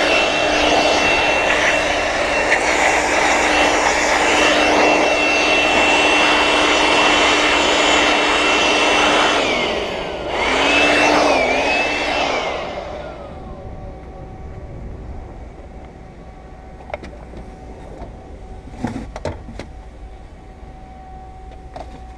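Electric air blower blowing dust out of a car's windshield frame. It runs at a steady whine for about nine seconds, cuts out briefly, runs again for a couple of seconds with a dip in speed, then winds down. After that only faint handling clicks remain.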